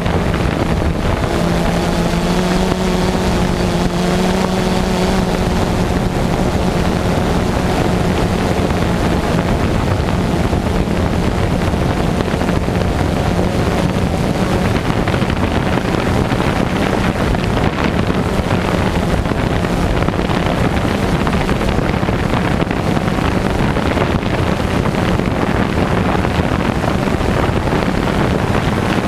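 Steady wind noise rushing over the microphone, with a low motor hum that is clearest in the first few seconds and then sinks into the rush.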